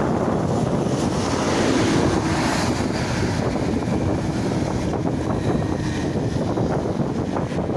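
Wind buffeting the microphone in a steady, loud rumble, with rushing noise from a moving ride underneath.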